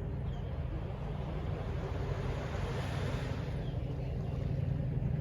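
Steady low rumble of distant city traffic, with a hiss that swells and fades about two to four seconds in.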